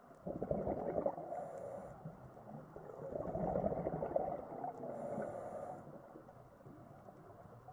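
Scuba breathing heard underwater: exhaled bubbles burbling from a regulator in a low, irregular rumble that swells in the middle, with two short high hisses.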